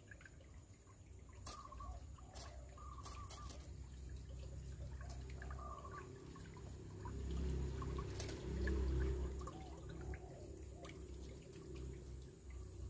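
Shallow stream trickling over stones, with rustling and low bumps from the phone being handled, loudest about seven to nine and a half seconds in, and a few scattered clicks.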